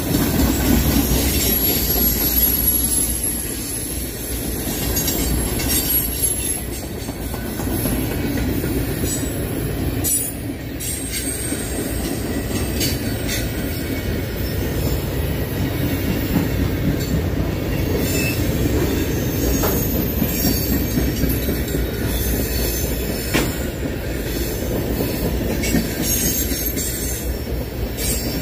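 Empty DODX military flatcars rolling past: a steady rumble of steel wheels on rail, with a high-pitched wheel squeal and scattered clicks as the wheels cross rail joints.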